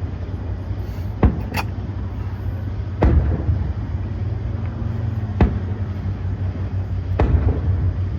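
Fireworks going off at a distance: about five sharp bangs, one to two seconds apart, over a steady low rumble.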